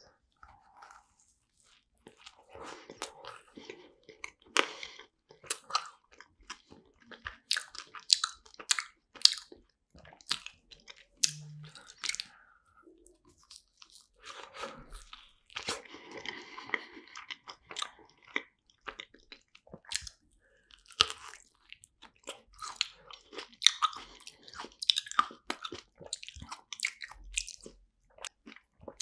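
Close-miked biting and chewing of a cream-filled macaron: crisp crunches of the shell in irregular clusters of sharp clicks.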